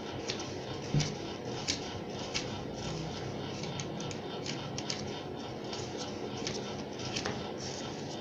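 Quiet small-room ambience with faint, irregular small clicks and a soft low thump about a second in.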